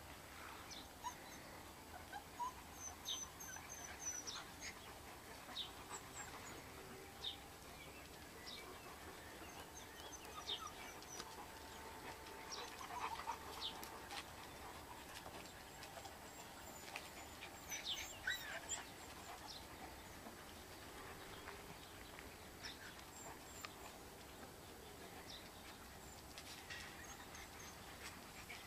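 Faint farmyard sounds: scattered short, high bird chirps, with chickens calling now and then.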